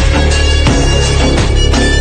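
Instrumental song music with a steady beat and heavy bass, and a reedy wind-instrument melody.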